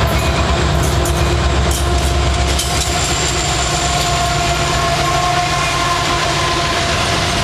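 A light engine consist of CSX diesel-electric locomotives, a GE SD70ACe leading, rolling past close by: a deep engine rumble with wheels clacking over rail joints as the lead unit reaches the microphone, and a few steady high tones over it.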